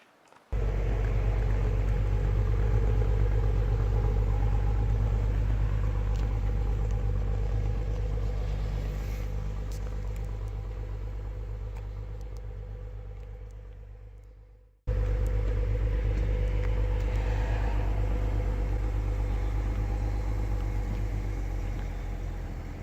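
A car running, with a steady low engine rumble and road noise, slowly fading away. The sound cuts off abruptly about two-thirds of the way through and comes straight back at full level.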